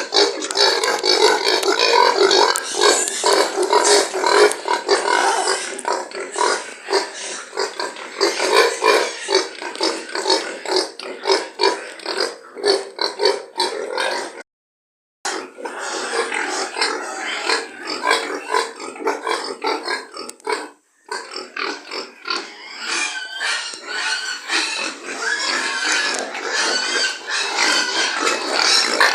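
Many pigs grunting and calling all at once in a dense, continuous din. It cuts out to silence briefly twice, once about halfway through and once about two-thirds of the way through.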